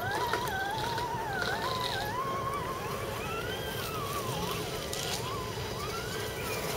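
Electric motor and gear train of an RC scale crawler truck (Axial SCX10 Jeep Wrangler) whining, the pitch gliding up and down with the throttle as it crawls up a rutted dirt trail.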